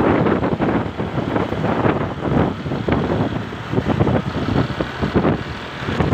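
Wind buffeting the microphone over the road and engine noise of a car on the move, an uneven gusty rush with no horn sounding.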